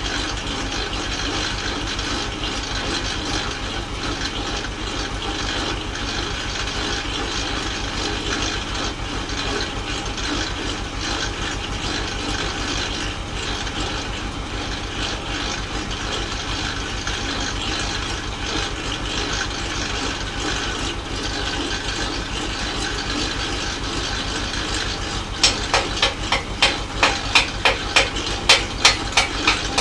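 Tractor engine idling steadily. About 25 seconds in, a hammer starts striking the steel frame of a homemade rotary mower, about three sharp blows a second.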